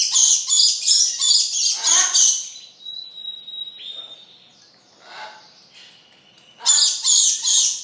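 Spanish timbrado canary singing: fast rolling trills of rapidly repeated high notes, a held single note about three seconds in, a quieter pause, then another loud burst of trills near the end.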